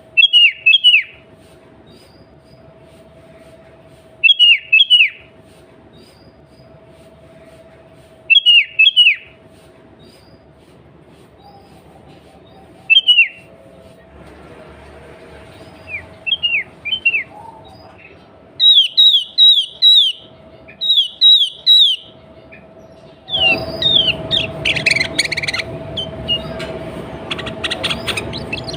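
Sooty-headed bulbul (kutilang) calling: short phrases of quick, falling whistled notes every few seconds, then faster runs of repeated notes. Near the end the calling gets louder and busier, with several calls overlapping over a rushing noise.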